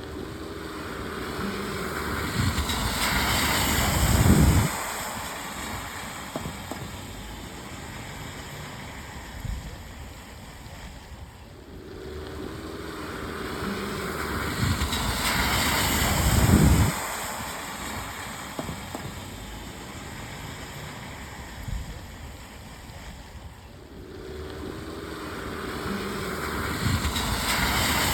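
Cars passing on a wet road in the rain, tyres hissing through puddles: each pass swells up to a loud peak and drops away, repeating about every twelve seconds, over a steady hiss of rain.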